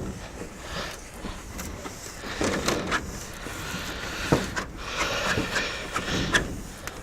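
Brush scrubbing algae off greenhouse panes with water: irregular scraping with several sharp knocks against the glass and frame.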